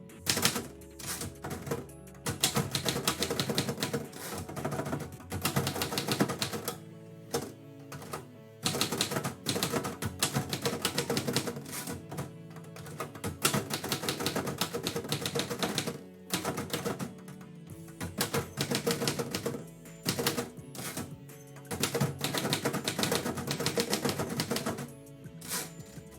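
Typewriter keys striking in quick runs, broken by short pauses every few seconds, over background music.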